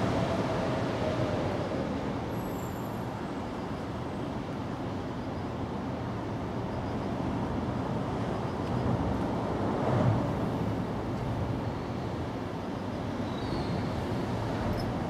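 Steady low rumble of distant road traffic, with a brief swell about ten seconds in.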